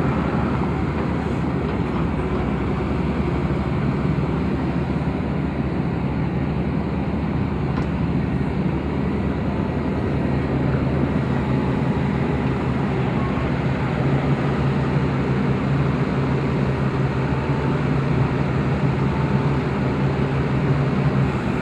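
Heavy construction machinery's diesel engine running steadily under load, a constant low drone with no revving or change in pace, as a wheel excavator pulls a road roller stuck in deep mud.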